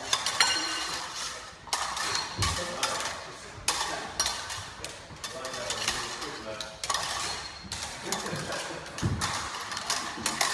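Rapier and dagger blades clashing and binding against each other in a string of sharp metallic clacks, some ringing briefly, with a couple of low thuds.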